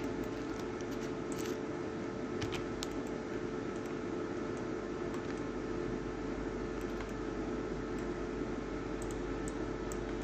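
Steady low hum and hiss of background noise, with a few faint clicks scattered through it.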